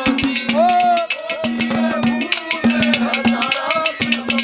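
Live Haryanvi ragni accompaniment between sung verses: rapid hand strokes on barrel drums over a held harmonium note, with a sliding melody line above.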